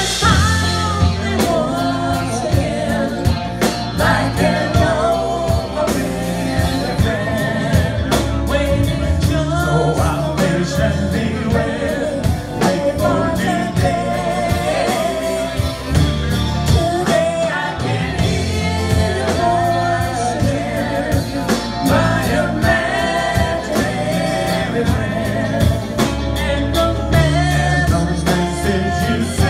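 Live rock band playing a song: singing over electric guitars, keyboards, bass and a drum kit keeping a steady beat.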